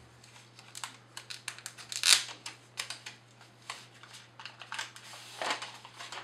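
Hands handling and turning over a fabric-covered Amazon Echo (2nd generation) smart speaker: scattered light taps, knocks and rustles, the loudest about two seconds in and another about five and a half seconds in.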